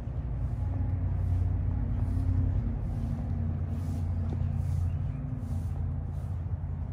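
Steady low rumble of a vehicle running on the road, with a faint hum of steady tones over it.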